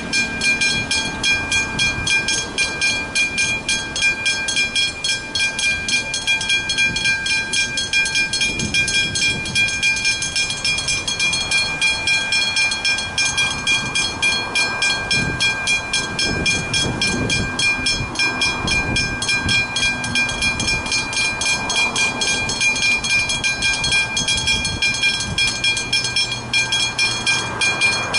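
Two Westinghouse Hybrid mechanical level-crossing bells striking rapidly and continuously, a fast, even clanging with a ringing tone. This is the crossing's warning, sounding for as long as the boom gates are down.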